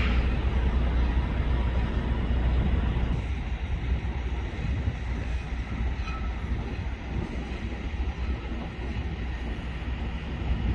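Steady low rumble with an even hiss over it, easing slightly about three and a half seconds in.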